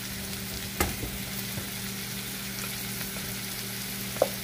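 Carrots and green peas sizzling steadily in margarine in a frying pan as riced cauliflower is poured in, with two light knocks, about a second in and near the end.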